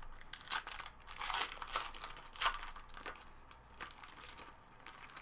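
Crinkling and tearing of a trading-card pack wrapper as it is ripped open and handled, in irregular rustling strokes that are busiest in the first half.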